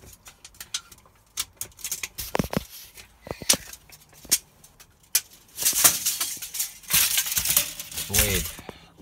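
Handling noise: sharp clicks, taps and light rattles as a folding saw and small metal items are moved about by hand on a rubber mat. A little past halfway come longer scraping, rustling stretches, with a short wavering tone near the end.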